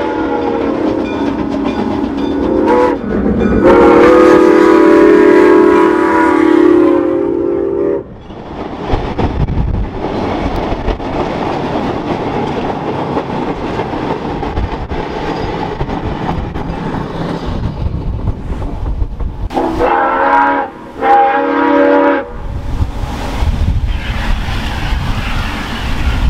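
Soo Line 1003, a 2-8-2 Mikado steam locomotive, sounding its chime whistle in a long blast at the start, with a short break about three seconds in. The train then runs past with a steady rumble and wheel clatter. About twenty seconds in there are two short whistle blasts, and the running train is heard again after them.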